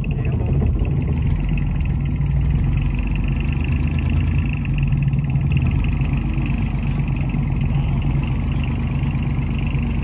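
A boat's engine running steadily with a low, even hum.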